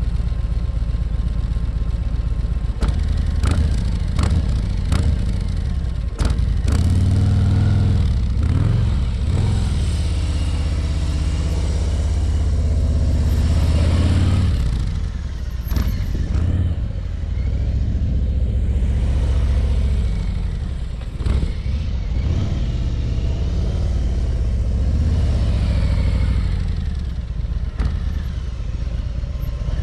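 Harley-Davidson Ultra Limited's V-twin engine running at walking pace, its revs rising and falling as the touring bike rides slowly past, loudest midway through. Several sharp clicks sound a few seconds in.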